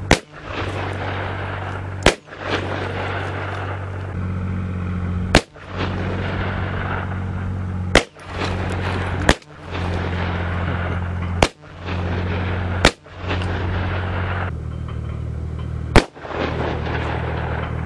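Eight single gunshots at uneven intervals, about one and a half to three seconds apart, fired at a bulletproof glass panel. The background briefly drops out after each sharp crack, and a steady low hum runs between the shots.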